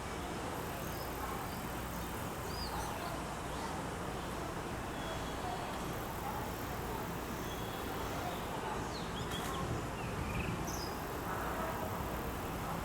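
Steady background noise of a railway station platform, with a few faint, short bird chirps scattered through it.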